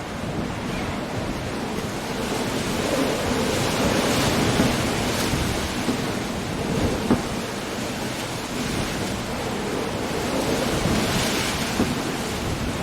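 Coastal storm: waves breaking against sea cliffs, with rain and wind in a continuous rush. The surf swells twice, and a few short sharp knocks sound through it.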